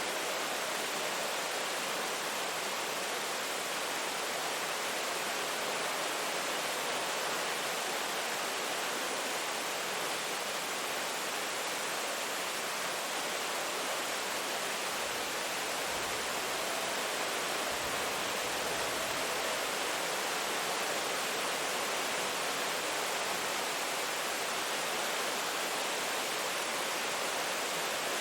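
Steady rain, an even unbroken hiss with no distinct drops or thunder.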